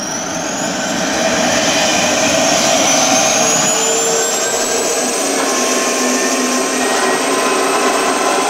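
Jet turbine startup sound effect played by the Dymond USA sound system through two small exciters fixed to the foam airframe of an HSD F-16 model, the foam itself serving as the speaker. It is the compressor start: a high whine climbs in pitch over a rushing noise, then levels off into a steady whine after about four seconds.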